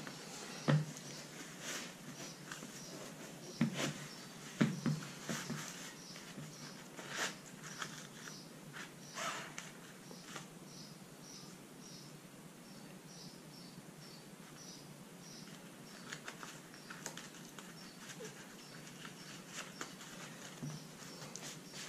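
Putting on a Salomon Speedcross 5 trail running shoe: faint rustling and a few soft knocks as the shoe and its tongue are handled, then a run of small short squeaks, a few a second, as the Quicklace cord is pulled tight and worked into its pocket.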